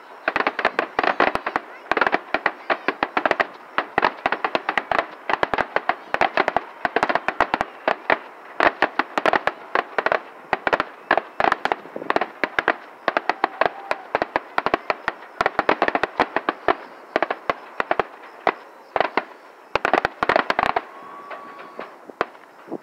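Fireworks display: a rapid, continuous stream of bangs and crackles, many each second, that thins out near the end.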